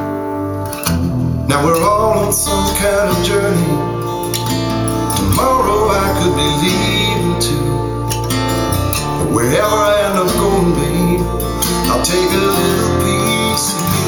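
Recorded music played through a pair of Bowers & Wilkins 604 S3 floor-standing speakers and picked up in the room: a guitar-led instrumental passage without lyrics.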